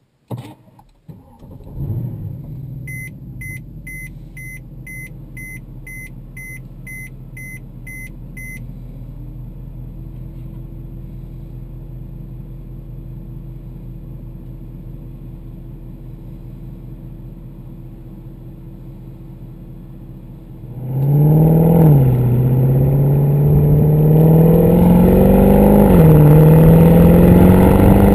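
A 2012 Mercedes C63 AMG's 6.2-litre V8 starts about two seconds in, flares, then settles to a steady idle, heard from inside the cabin. A warning chime beeps about twice a second for several seconds. Near the end the V8 pulls hard and much louder under acceleration, its note rising and dropping back twice through upshifts.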